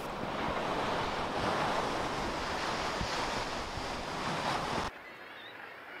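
Steady rushing noise of wind and sea surf at a sea cliff. It cuts off abruptly about five seconds in, leaving a quieter background with one faint, short high call.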